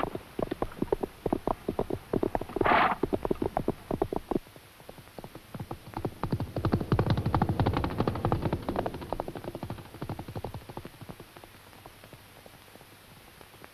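Horses' hooves galloping in a rapid clatter, with a short high cry about three seconds in. A second burst of hoofbeats swells and passes about six to ten seconds in, then fades away.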